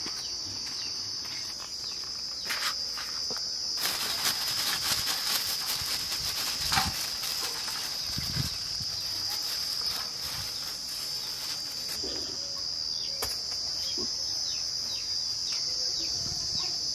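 Steady high-pitched drone of insects. From about four seconds in until about twelve seconds, dense crackling of a plastic bag being handled plays over it.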